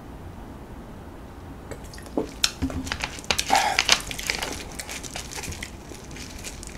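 Plastic cola bottle crackling and clicking as it is set down and its screw cap is twisted back on. A quick cluster of sharp crinkles and ticks starts about two seconds in.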